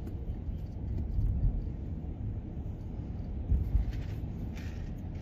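Cabin noise of a moving car on a wet road: a steady low rumble of tyres and engine, with a few low bumps and a short hiss about four and a half seconds in.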